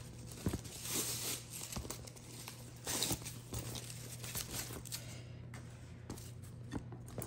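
Protective wrapping crinkling and tearing in handling as a leather bag strap is unwrapped, with irregular crackles and small clicks that die down after about five seconds.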